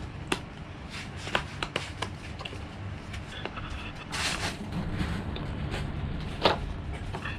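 Handling noise from toys being played with: scattered light taps and clicks, with a brief rustle about four seconds in.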